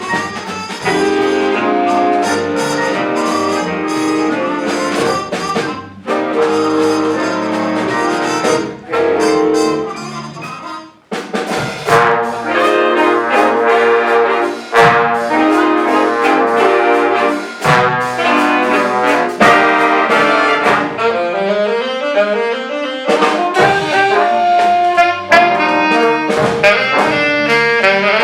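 High school jazz band playing swing, with saxophones, trumpets and trombones in full ensemble. About ten seconds in the band briefly stops, then comes back in with sharp accents.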